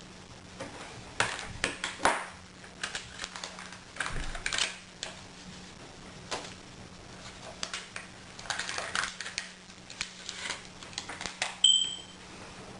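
Irregular clicks, taps and knocks of hands working on laptop and hard drive parts, with some rustling. A single short high beep sounds near the end.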